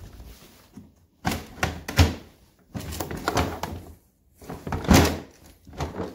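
Hard plastic Ryobi LINK tool boxes knocking and clunking together as one is pressed onto the stack and lifted off again, its latch not locking in. Several separate thunks, the loudest about two seconds in and again near five seconds.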